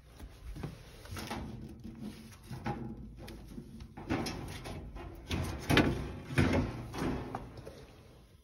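Irregular knocks, bumps and rustling of someone moving about and handling things, loudest a little after halfway through.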